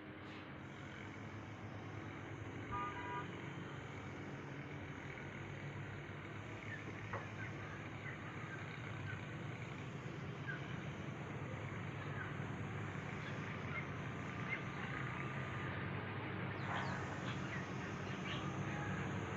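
Background ambience of steady distant traffic hum growing slowly louder, with a short horn-like toot about three seconds in and scattered bird chirps.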